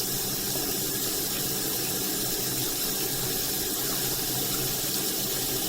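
Water running steadily from a bathroom sink faucet's waterfall spout into the basin.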